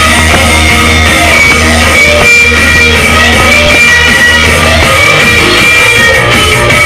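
Loud guitar-led music with heavy, steady bass, played through a mobile DJ sound system.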